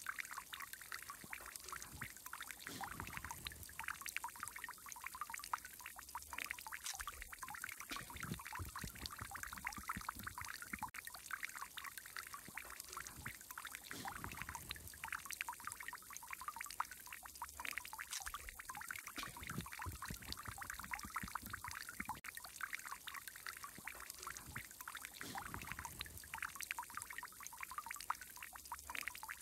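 Water fountain splashing and trickling steadily, with many small droplet splashes.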